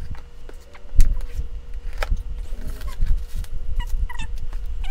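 Cardboard shipping box and paper inserts being opened and handled: rustling and scraping with sharp knocks, the loudest about a second in. Near the end come several short, high squeaky chirps.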